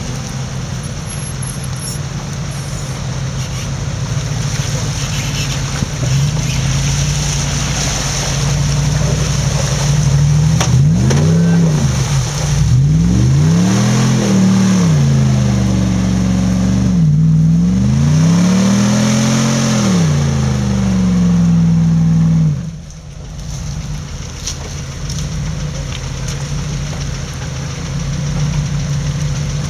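Jeep Grand Cherokee engine pulling hard through mud, revved up and down in several rising and falling surges, then dropping back abruptly about three-quarters of the way through.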